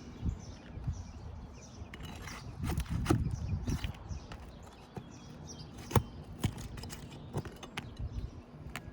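Irregular scraping and sharp taps of hand tools working on a 3-tab asphalt shingle roof, with a busier run of knocks about three seconds in and a single sharp click about six seconds in.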